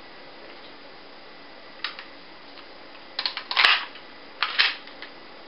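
HFC HA-118 spring airsoft pistol, a Beretta M9 replica, clacking as its slide is worked to cock it, with one sharp shot about three and a half seconds in. A single click comes before it and more clacking follows.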